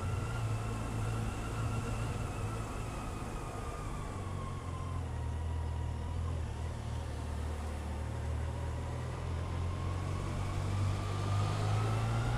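Motorcycle engine running at low road speed, heard from on board, with a steady low hum. A thin whine drops in pitch as the bike slows over the first few seconds, then climbs again near the end as it picks up speed.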